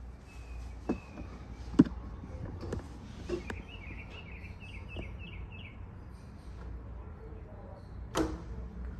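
Scattered sharp clicks and knocks of plastic and metal parts of a fingerprint door lock being handled and fitted. The loudest comes about two seconds in and another near the end. In the middle comes a quick run of short, high chirps.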